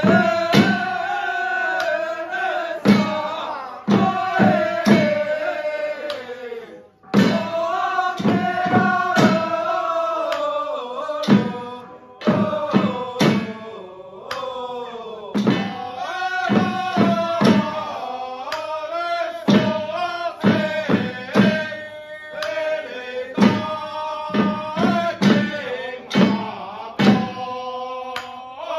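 A xiaofa ritual troupe chanting in unison over steady hand-drum beats. The chant breaks off briefly about seven seconds in, then carries on.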